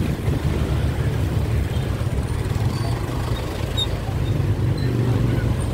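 Steady low rumble of a motorcycle riding through city traffic: the bike's running noise mixed with wind on the microphone.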